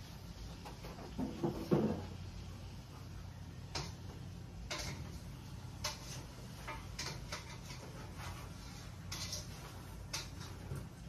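Kitchen utensils and cookware clicking and tapping irregularly over a low steady hum, with a heavier clatter about a second and a half in.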